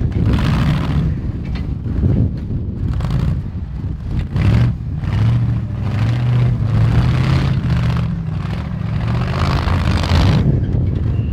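Rock-crawler off-road vehicle's engine running under load and revving in repeated surges as it climbs over boulders.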